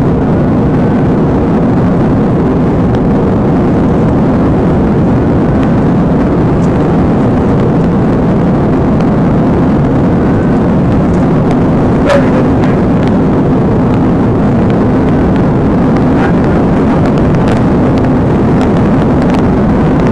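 Patrol car driving at well over 100 mph, heard from inside: loud, steady road, tyre and wind noise over the engine's drone. There is a single brief click about twelve seconds in.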